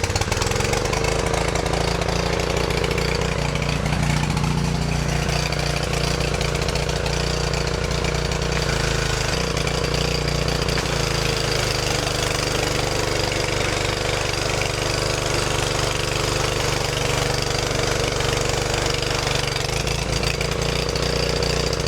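Briggs & Stratton 163cc single-cylinder engine on a Craftsman pressure washer running at a steady speed, just after starting, with its automatic choke linkage set right again.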